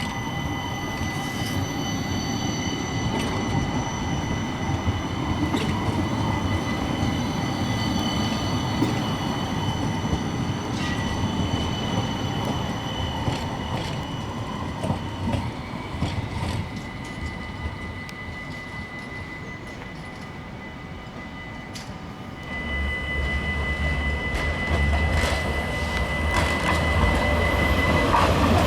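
SIG high-floor light-rail tram running on its track, with steady high-pitched whining tones over the rolling noise. The sound eases off past the middle, then a deep rumble builds and grows louder toward the end as a tram comes closer.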